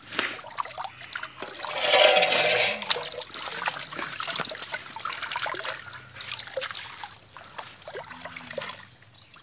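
Water splashing and trickling as it is scooped by hand and poured over a dog standing in a basin of water, with a loud splash about two seconds in.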